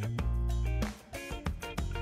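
Background music: plucked notes over sustained low bass notes.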